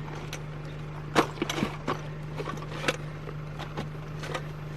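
Loose metal hand tools (sockets, a ratchet, extensions) clinking and knocking against each other as they are rummaged through, with sharper knocks about a second in and near three seconds, over a steady low hum.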